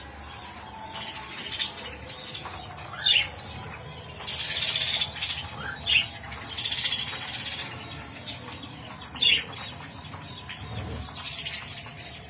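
Pet parrot giving three short, sharp falling chirps, with two harsh, hissy bursts of about a second each between them.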